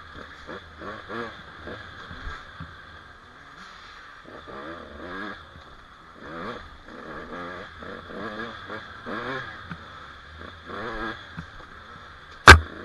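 Small off-road dirt bike engines revving up and down, over and over, as the riders pass. Near the end, one sharp, loud knock.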